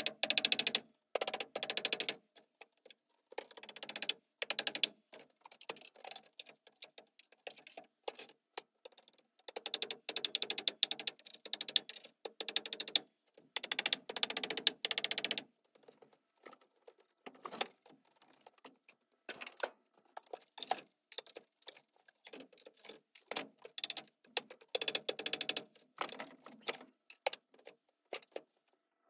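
Hand tool worked against a wooden board in bursts of rapid clicking, scraping strokes, each burst lasting a second or two, with pauses between.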